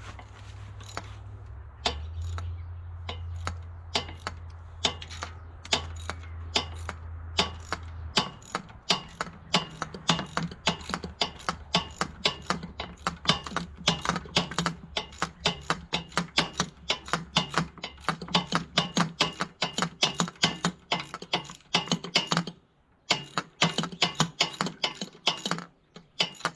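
Socket ratchet wrench clicking in quick, even strokes, about four or five clicks a second, as a short fine-thread bolt is backed out, with a brief pause about three-quarters of the way through. A low steady hum runs underneath.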